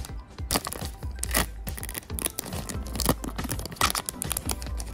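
A foil trading-card booster pack being torn open by hand, its wrapper crinkling and crackling in quick irregular bursts.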